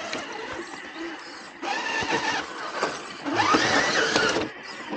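RC rock crawler's electric motor and gear drivetrain whining under throttle as it climbs rock, in two bursts whose pitch rises and falls, about a second and a half in and again past three seconds.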